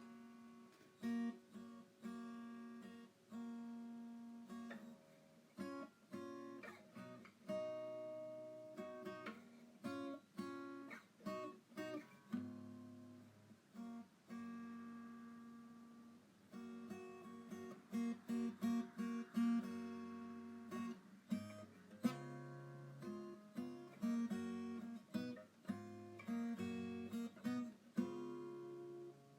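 Background acoustic guitar music, plucked and strummed notes.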